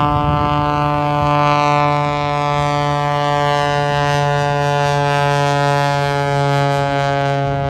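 Aerobatic biplane's piston engine and propeller droning at a steady pitch as it flies a display routine.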